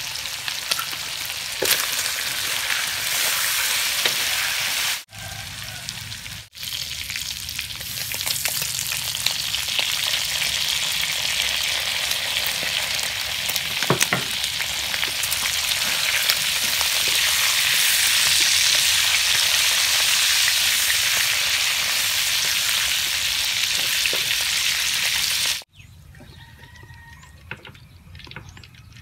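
Cubes of pork sizzling as they are stir-fried in a metal wok, a metal spatula scraping and clicking against the pan. The sizzle breaks off briefly twice early on, grows louder in the second half, then cuts off suddenly near the end, leaving a much quieter background.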